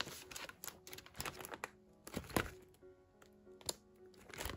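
Quiet background music under scattered small clicks and taps of photocards and plastic binder sleeves being handled, the sharpest tap about halfway through.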